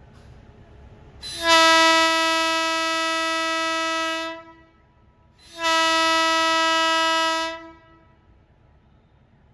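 Horn of a WAP-7 electric locomotive sounding two long blasts as the train departs. Each blast is one steady pitch. The first lasts about three seconds and the second about two, with a short gap between them.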